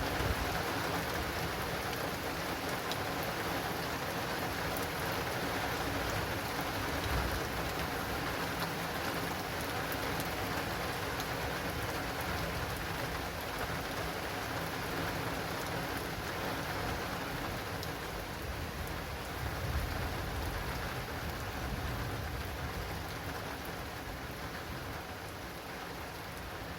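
Heavy rain drumming steadily on an acrylic rain awning, with a low thunder rumble swelling about two-thirds of the way through; the rain eases a little near the end.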